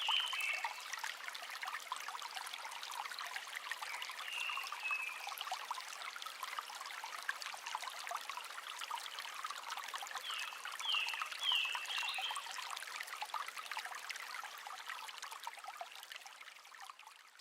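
Mountain stream rushing steadily over rocks, with a small bird calling now and then: a short chirp at the start, another about four seconds in, and a run of four quick falling notes around ten to twelve seconds in. The sound fades out at the very end.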